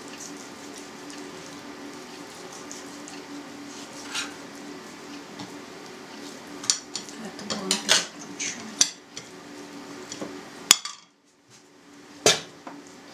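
A kitchen knife cutting raw pork on a cutting board, with scattered sharp knocks and clinks of the knife and dishes against the board and table, over a low steady hum. A sharper clink comes near the end as the metal ham-maker cylinder is moved.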